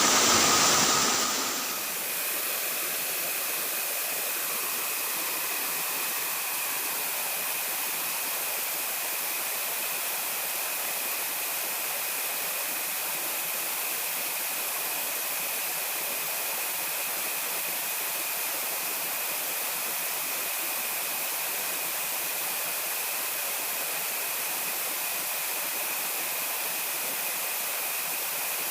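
Steady rushing outdoor noise with a constant high-pitched whine running through it. A louder noise fades out in the first two seconds.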